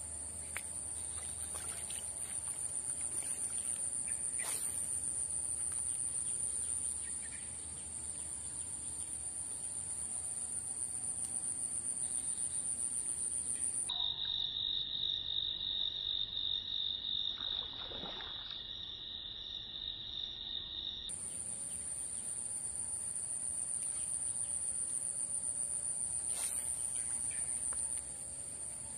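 Continuous high-pitched drone of insects in swampy vegetation. For several seconds in the middle it shifts to a lower steady tone, then the high drone returns.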